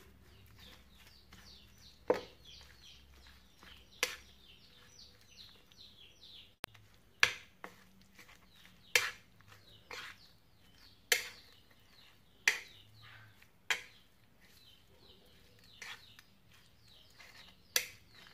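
Chopsticks stirring raw goat meat in a plastic bowl to work in a spice marinade, with sharp clicks against the bowl every second or two and faint quick ticking between.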